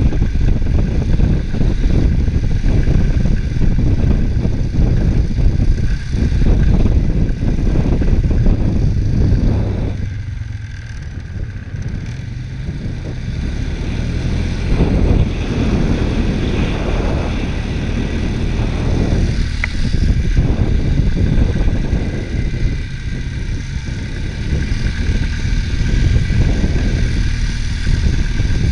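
ATV engine running while riding along. It eases off about ten seconds in, then picks up again a few seconds later.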